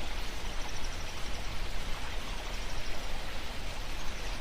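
Mountain stream water running over rocks, a steady, even rush.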